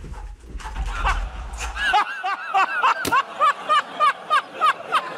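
A person laughing in a rapid run of short, high-pitched bursts, about three a second.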